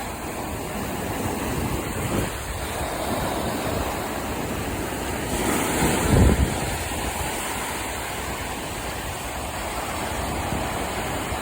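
Ocean surf washing onto a beach, with wind buffeting the microphone. A louder surge comes about six seconds in.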